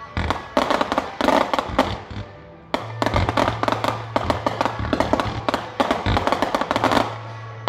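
Fireworks going off in a dense, rapid run of bangs and crackles over show music. It thins out briefly, then picks up again about three seconds in, where a long low bass note joins underneath.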